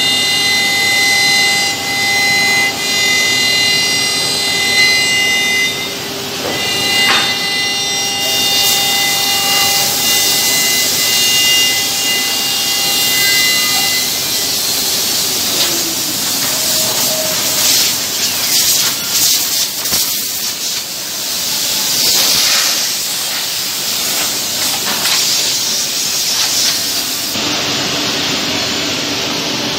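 5-axis CNC router (Woodmaster Pro-Master-T3AP) machining a wooden part: the spindle runs with a steady high whine, and a loud hiss joins a few seconds in. About halfway through the whine stops, and a rough hiss with scattered clicks and knocks carries on.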